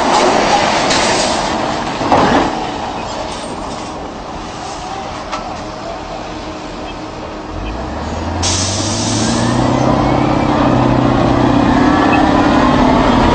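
Tracked armoured vehicles driving past, their engines running and tracks rattling, with a short loud clank about two seconds in. From about halfway through, a nearer engine revs up, rising in pitch and growing louder as the vehicle passes close by.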